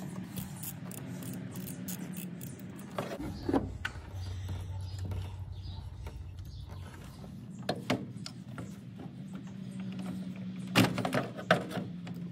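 Scattered metallic clicks and clinks of a small ratchet and hand tools loosening the hose clamps on a truck's inline fuel filter, over a low steady hum. The sharpest knocks come about three and a half, eight and eleven seconds in.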